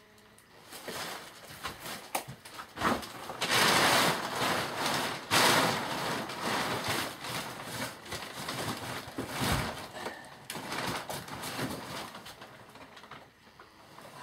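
Rustling and crackling of a stiff sheet draped over a wooden shelf as a cat pushes about underneath it. The noise comes in irregular bursts, loudest about four and five seconds in, then dies down towards the end.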